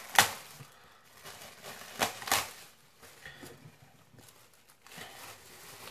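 Clear plastic bag around a t-shirt torn open with a sharp rip just after the start, then a few shorter bursts of plastic crinkling, the strongest about two seconds in.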